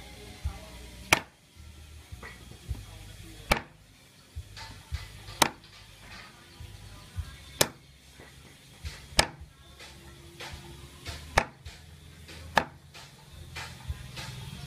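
Heavy cleaver chopping meat on a thick round wooden chopping block: about seven hard chops, spaced every one and a half to two seconds, with lighter knocks between them.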